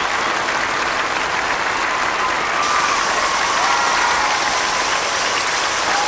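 Small waterfall spilling over stacked rock ledges onto stone: a steady rush of falling water.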